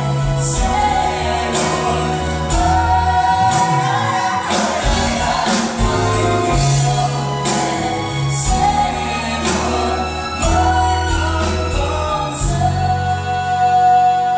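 A band playing a song with singing over it: held bass notes under a melody line, and drums with cymbal hits throughout.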